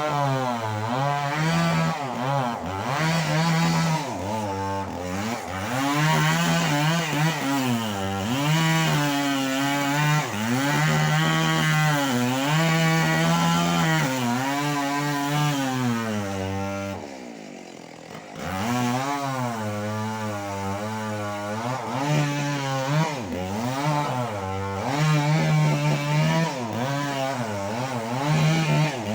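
Stihl MS 381 two-stroke chainsaw running hard as it cuts durian wood, its pitch repeatedly sagging under load and climbing back. A little past halfway it drops off for a second or so, then revs up and cuts on.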